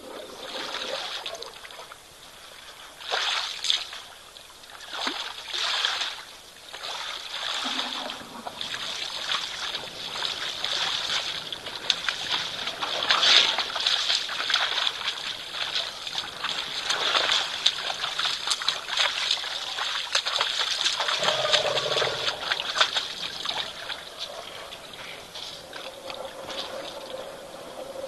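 African elephants wading through a shallow muddy waterhole, water splashing, sloshing and trickling around their legs and trunks. The sound comes in uneven surges, with several louder splashes spread through.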